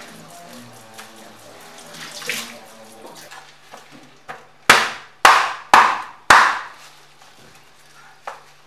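Tap water running into a stainless steel sink for the first few seconds, then a cleaver chopping through a fish onto a plastic cutting board: four loud chops about half a second apart.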